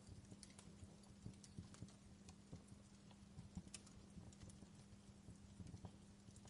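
Faint fireplace crackle: sparse, irregular pops and snaps over a low steady hum.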